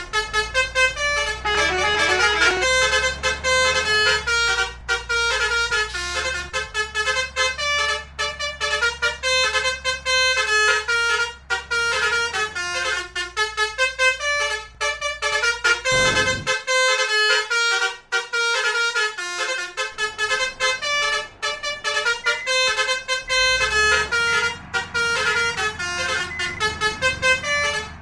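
Telolet bus horns, Basuri multi-tone trumpet horns, playing a fast melody of short notes, with bus engines running low underneath for much of it.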